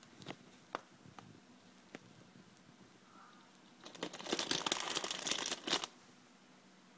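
Golden hamster gnawing a crunchy snack stick: a few separate cracks, then about two seconds of rapid, dense crunching starting about four seconds in.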